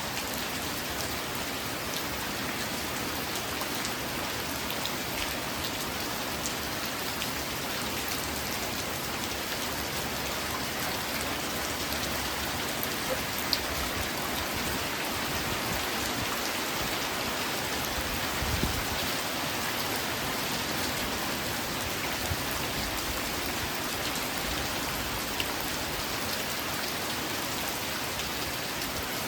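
Steady rain falling, an even hiss with scattered individual drops ticking. A single low thud sounds about two-thirds of the way through.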